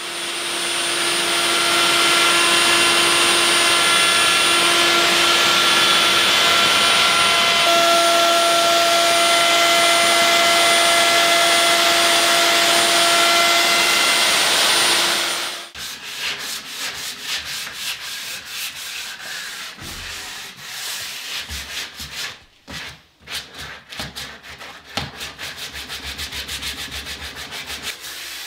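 Electric power sander running on wood for about fifteen seconds, building up at the start and stopping abruptly. Then come quieter, quick, irregular rubbing strokes that grow faster and more even near the end.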